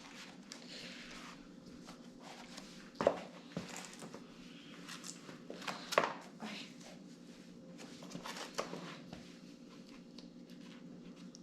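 Scattered light knocks and rustling as clip-in cycling shoes are put on, with the loudest knocks about three and six seconds in, over a steady low hum.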